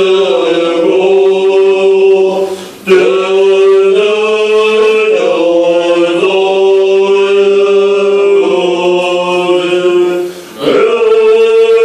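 Tibetan Buddhist monks chanting together in long held notes, the pitch shifting from phrase to phrase over a steady low tone. The chant breaks off briefly twice, about three seconds in and near the end, and resumes each time.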